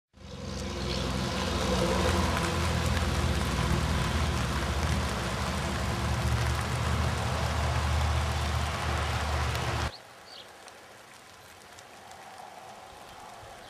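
Steady, loud vehicle engine drone mixed with rushing noise. It cuts off sharply about ten seconds in, leaving a much quieter outdoor background with a few faint high chirps.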